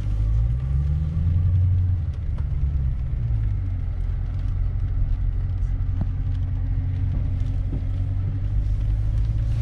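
Car engine and road noise heard from inside the cabin while driving: a steady low drone, with the engine note rising and then falling back about a second in.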